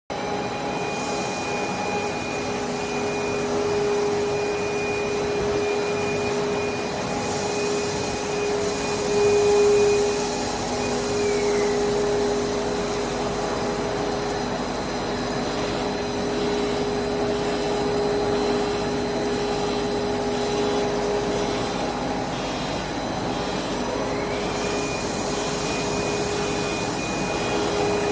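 Steady machine noise of a running stretch film production line: a constant rushing hum of motors and fans under several steady whining tones. A high whine falls away in pitch about eleven seconds in and comes back near the end.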